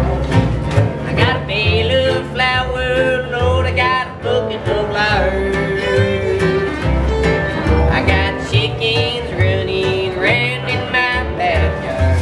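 Acoustic string band playing a country/bluegrass-style tune: a fiddle carries the melody over regular plucked bass notes.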